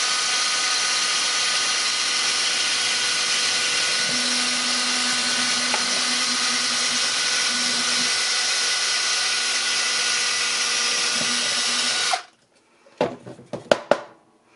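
DeWalt cordless drill running steadily with a motor whine as its bit bores through a piece of driftwood. It stops abruptly about twelve seconds in, followed by a few sharp knocks.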